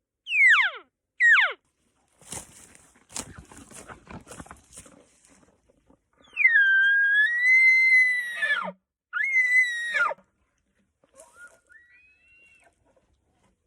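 Elk calls: two short squealing mews that fall steeply in pitch, a couple of seconds of rough clicking, then a loud, long high-pitched bugle whistle that drops off sharply at its end, a shorter bugle right after, and a fainter rising call near the end.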